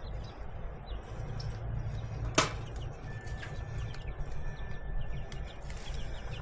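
Handling of a baited cage trap: one sharp click about two and a half seconds in, over a steady low rumble, with faint bird chirps.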